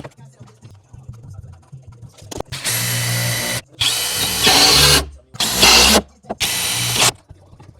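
Power drill run in four short bursts of about a second each, with short pauses between.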